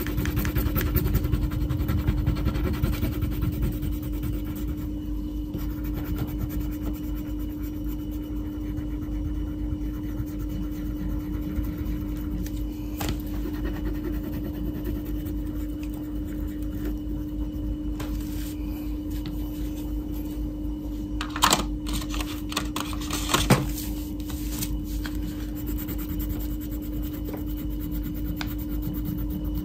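Wax crayon scratching and rubbing on paper as a drawing is coloured in, over a steady low hum. Two sharp knocks about two seconds apart come a little past two-thirds of the way through.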